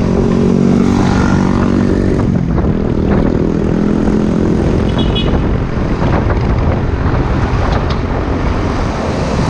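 Mercedes-Benz Axor 4928T tractor-trailer's diesel engine running as the truck drives past, its engine note strongest in the first few seconds, over steady road traffic noise.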